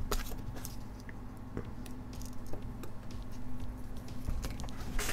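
Scattered light clicks and taps of small metal tools being picked up and handled on a workbench, over a faint steady hum.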